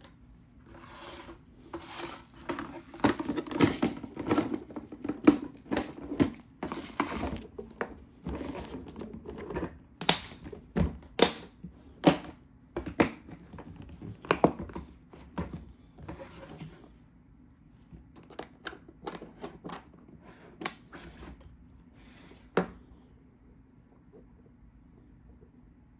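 A clear plastic storage box being handled and its lid pressed shut over a filament spool: a busy run of plastic clicks, knocks and rustles that thins out after the middle, with one last sharp click near the end.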